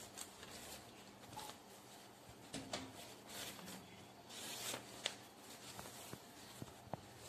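Faint rustling of paper as a small stack of magazines is handled and their pages are flipped, the longest rustle a little past halfway, with a few soft ticks.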